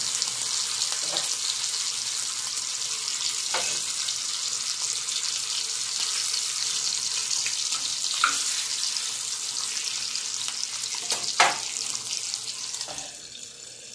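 Bacon sizzling loudly in a hot cast-iron skillet: a steady spitting hiss, broken by a few clicks of a metal spatula against the pan, the sharpest near the end. In the last second or so the sizzle drops to a quieter hiss as a lid goes on the pan.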